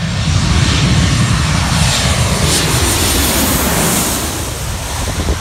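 Aircraft engines running loud as a plane passes low overhead: a deep rumble under a hiss that swells in the middle and eases slightly near the end.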